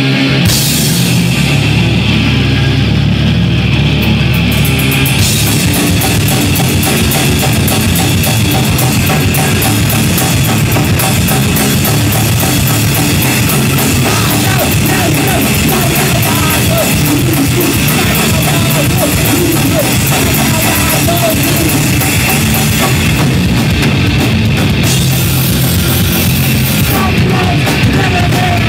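Live rock band playing loud: distorted electric guitars and bass over a full drum kit. The cymbals come in about five seconds in.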